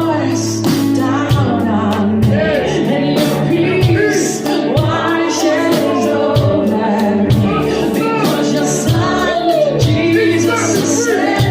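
Music: a song sung over a band accompaniment with a steady beat.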